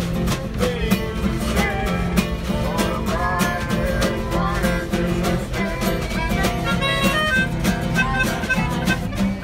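Small acoustic band playing a bluesy tune: strummed acoustic guitar and a steady snare-drum beat played with sticks, under a lead melody line.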